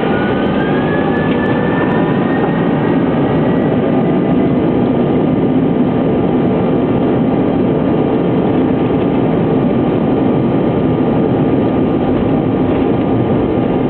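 Lockheed L-1011 TriStar's three Rolls-Royce RB211 turbofans at takeoff power during the takeoff roll, heard inside the cockpit: a loud, steady rush of engine and airflow noise. A whine rises in pitch over the first two seconds, then holds steady.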